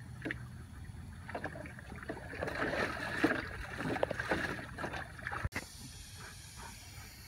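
Water sloshing and splashing in a plastic paddling pool as a black Labrador retriever wades and dunks its head in it, in a quick run of irregular splashes that grows busier midway and breaks off suddenly a little past five seconds in.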